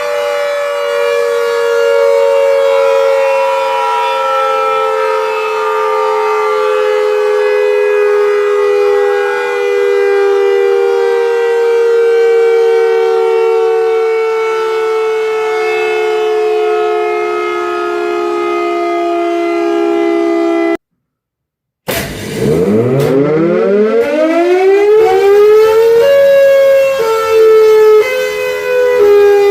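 Cold War era Secomak GP8 air raid siren holding a steady two-note wail that slowly sags in pitch. It cuts off suddenly about 21 seconds in, and after a second's silence it starts again, winding up from a low pitch to full pitch over about four seconds and holding there.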